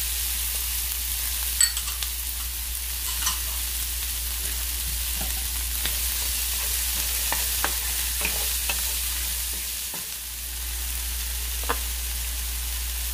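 Chopped bell pepper, onion and tomato sizzling steadily in a frying pan in oil and chicken marinade, being stirred, with a utensil clicking sharply against the pan now and then.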